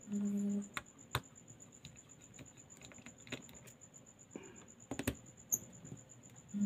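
Scattered light clicks and taps of a precision screwdriver turning out the small midframe screws of an opened Redmi 9S smartphone, with a closely spaced pair of clicks about five seconds in.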